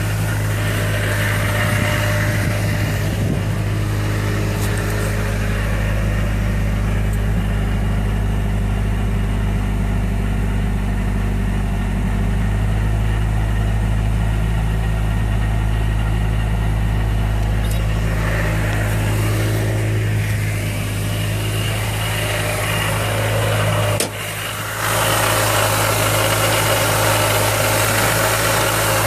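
Mazda Miata engine with a Jackson Racing M45 supercharger, running steadily at idle with a noise that sounds awful and that the owner takes for possibly bad supercharger bearings. Near the end there is a brief dip and a click, after which a harsher, brighter noise is louder.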